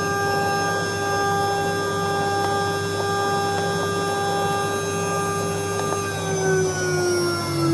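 The CNC router's 2.2 kW liquid-cooled spindle runs with a steady high whine, then begins spinning down, its pitch falling slowly from about six seconds in.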